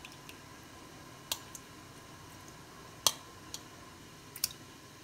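A few light clinks of a steel spoon against steel bowls as thick curd is spooned from one into the other; four or five short sharp clicks, the loudest about three seconds in.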